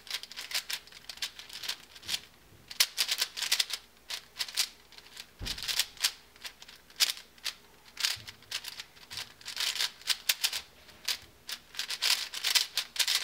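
Mini MoYu Aosu 4x4 speed cube being turned fast by hand, its plastic layers clacking in quick flurries of turns with short pauses between them.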